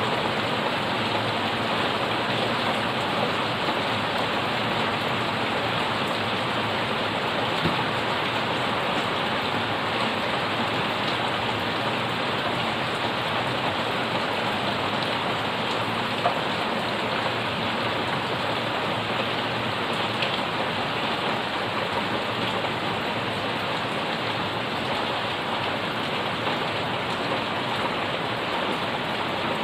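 Heavy rain pouring steadily onto broad leaves, plant pots and a puddled concrete path: an even hiss of rain with a couple of single louder drops.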